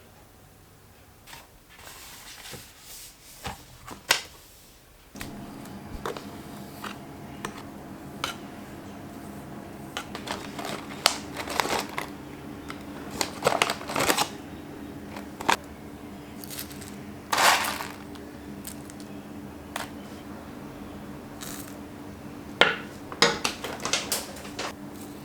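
Kitchen handling sounds: dishes and utensils clinking, knocking and scraping in irregular short strokes. A steady electric hum, like a kitchen appliance running, comes on about five seconds in and continues under them.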